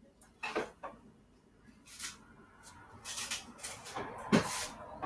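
Someone rummaging in a refrigerator: scattered knocks and clatter of containers and packages being moved about, getting busier toward the end, with one loud knock about four seconds in.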